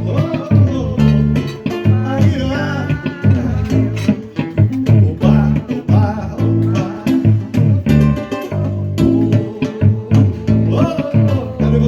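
Live acoustic-guitar accompaniment with bass, a steady strummed samba-style rhythm, and a voice singing over it at times.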